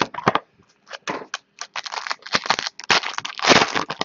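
Foil trading card pack crinkling and tearing as hands pull it from its box and rip it open: a quick run of sharp crackles, with the loudest, longest crinkle about three and a half seconds in.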